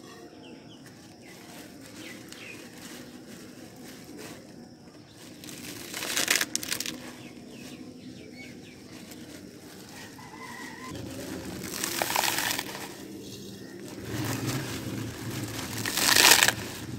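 Dry vermicelli snapped and crushed by hand, with crinkling of its plastic packet. There is rustling throughout and loud bursts of crunching three times: about six seconds in, about twelve seconds in and near the end.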